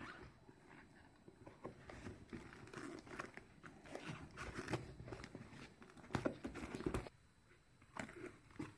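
Cardboard camera box being handled and opened with leather-gloved hands: scrapes and rustles of card and glove leather, broken by a few sharp taps and clicks, the loudest about two-thirds of the way through.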